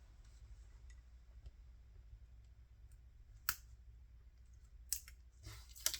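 Faint low hum with a few sharp clicks from crafting tools being handled on a work table: one about three and a half seconds in, another near five seconds and one just before the end.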